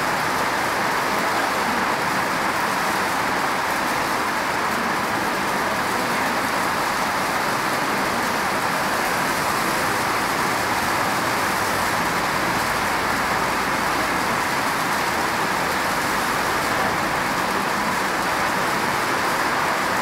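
Steady rain falling: an even hiss that holds at the same level throughout, without breaks or swells.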